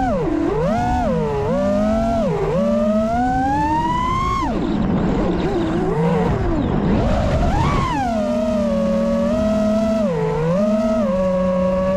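FPV quadcopter's four T-Motor Pro V 2020KV brushless motors and propellers whining, the pitch swooping up and down with the throttle. A long rising climb in pitch ends about four and a half seconds in with a throttle chop and a couple of seconds of rough, low buzzing, before the pitch jumps back up and holds fairly steady with one brief dip.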